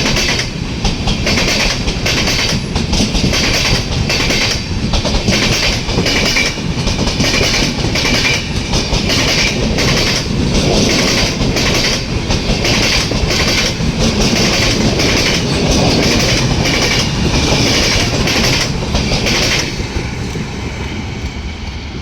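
Passenger express train's coaches rolling past, wheels beating a regular clickety-clack over the rail joints, easing off near the end as the last coaches go by.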